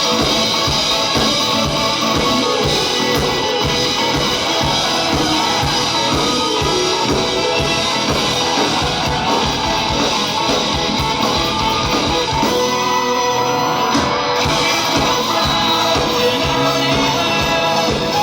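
Live rock band playing, with guitars, drum kit and vocals. The drums drop out briefly about two-thirds of the way through, then come back in.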